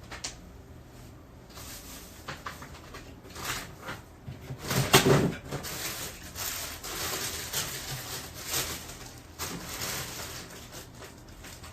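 Handling noises while food is being prepared: scattered knocks and clicks with rustling, and a louder clatter about five seconds in.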